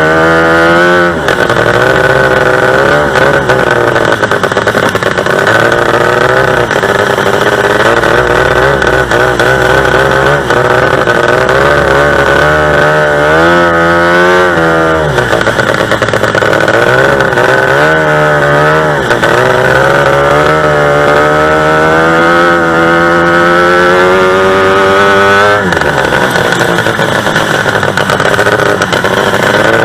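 Two-stroke racing-boat engine running hard and loud, its pitch dipping and climbing back up several times as the revs drop and rise.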